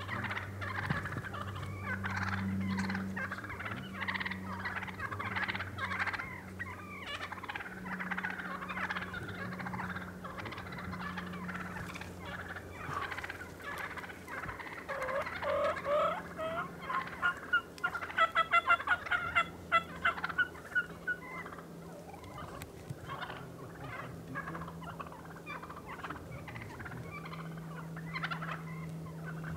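A flock of wild turkeys calling close by: soft chattering calls from several birds throughout, and a loud gobble, a rapid run of pulses, from a tom a little past halfway.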